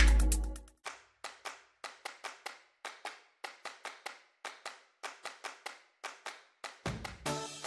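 Short sharp clap-like clicks in an uneven rhythm, about three a second, with silence between them. Music with held notes comes back in near the end.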